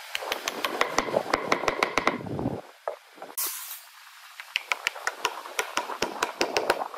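Rapid light tapping and knocking of wood, about six or seven sharp taps a second, in two runs with a pause between them, as wooden joint parts are fitted together. A brief hiss sounds in the pause.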